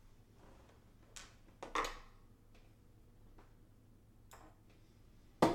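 Scattered light clicks and knocks of metal rig-frame parts and screws being handled and fitted, with a sharper knock near the end.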